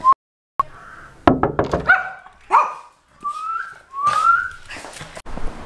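Small dog yipping and whining excitedly, with short high rising whines, while a glass door is opened with a few thuds about a second in.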